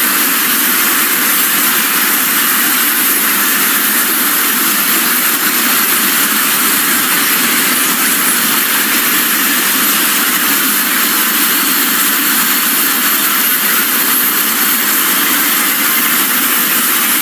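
A loud, steady wall of noise from many video soundtracks played on top of one another, blended into an even roar in which no single voice or sound stands out.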